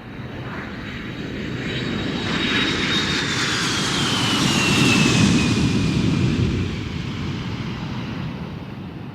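Jet airliner passing by, its engine noise swelling to a peak about halfway through and then fading, the high turbine whine dropping in pitch as it goes past.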